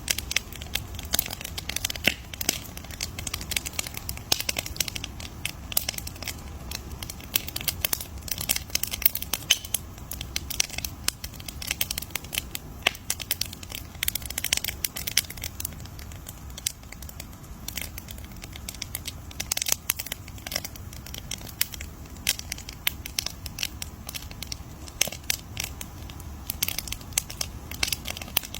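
Wood fire crackling, with dense irregular pops and snaps over a low, steady rumble.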